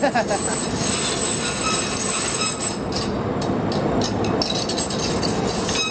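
MAX light rail train passing close at street speed: a steady rolling rumble with a thin high-pitched wheel squeal, then a quick run of sharp clicks about three seconds in.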